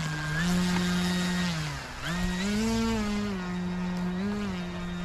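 E-flite Carbon-Z Cessna RC plane's electric motor and propeller as it taxis on grass: a buzzing whine whose pitch steps up and down with the throttle. It drops low just before two seconds in, then climbs again.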